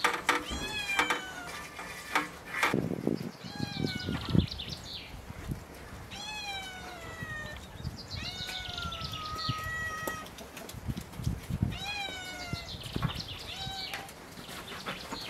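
A cat meowing again and again, short calls that fall in pitch, every second or two. A few light clicks and knocks in the first few seconds.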